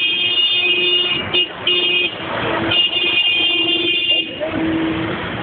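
Tractor horn sounding in two long blasts, the first with a brief break about a second in, the second stopping a little after four seconds.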